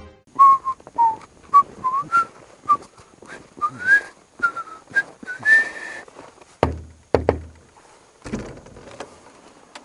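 A person whistling a tune in short notes that gradually climb in pitch, over the crunch of footsteps in snow. Two heavy thumps come about seven seconds in.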